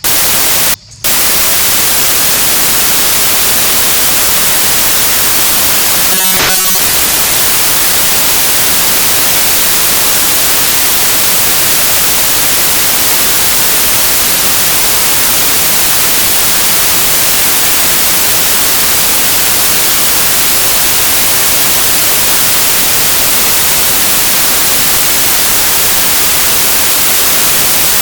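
Loud, steady white-noise static hiss across the whole range, with a brief dropout about a second in.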